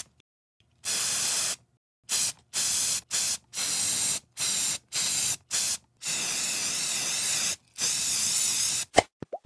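Sound-effect hissing, like a spray: about ten bursts of different lengths, from short puffs to one of about one and a half seconds, each starting and stopping abruptly. Just before the end, quick rising pops begin.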